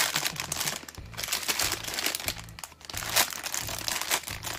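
Plastic packaging around a hank of cotton rope crinkling as hands grip and turn it over, with background music underneath.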